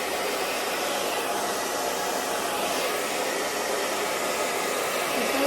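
Hair dryer blowing steadily, drying the lace-wig glue.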